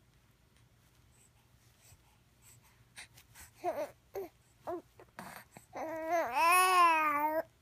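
A 2.5-month-old baby vocalizing: a few short voiced sounds, then one long, loud coo whose pitch wavers, lasting about a second and a half near the end.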